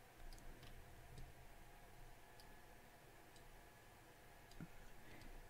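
Near silence: quiet room tone with a few faint, scattered computer mouse clicks.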